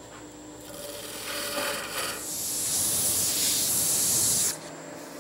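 Wood spindle spinning on a lathe while a hand turning tool shaves it softly. About two seconds in, sandpaper is pressed against the spinning wood and gives a loud, steady rushing hiss that cuts off suddenly near the end.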